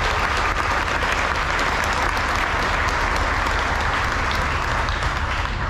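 Audience applauding, a steady patter of many hands clapping that eases off near the end.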